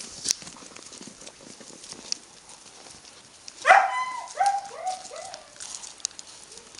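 Belgian Malinois puppies yelping while they tug at a prey rag: a burst of about five short yelps roughly a third of a second apart, starting about three and a half seconds in, the first the loudest. Scattered clicks and scuffles sound throughout.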